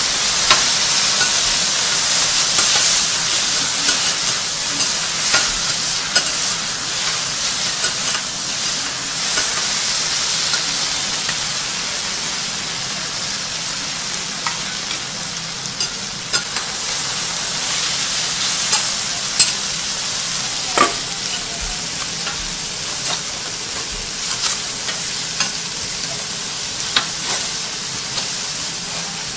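Food sizzling on a hot teppanyaki griddle, a steady high hiss, with metal spatulas clicking and scraping against the steel plate now and then.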